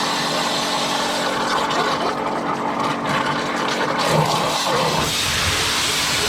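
Pressure washer running steadily: a loud hissing spray over a steady machine hum, flushing rust out of the ZIL-157's engine block water jacket.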